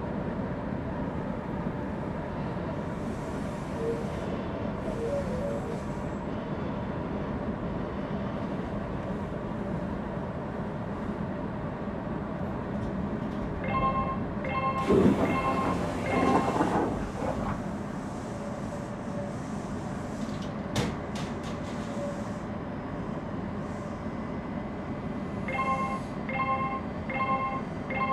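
A Semboku Rapid Railway electric train standing at a station platform, its equipment giving a steady hum. Twice, about twelve seconds apart, a short electronic chime of four quick beeps sounds. Just after the first chime comes a loud rushing burst lasting about two seconds.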